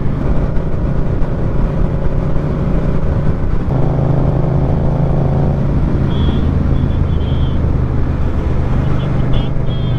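Motorcycle engine running steadily at road speed under a rush of wind noise. The engine note changes about four seconds in and settles back a couple of seconds later.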